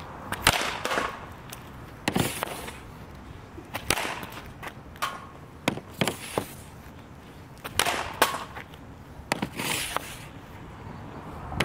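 Hockey stick shooting pucks off concrete: a string of sharp cracks as the blade slaps puck after puck, about one every one to two seconds.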